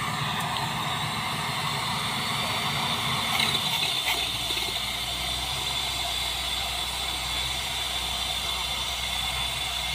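A tube-well drilling rig running: steady machine noise with a high hiss over it. About four seconds in, the low rumble changes to a steadier low hum.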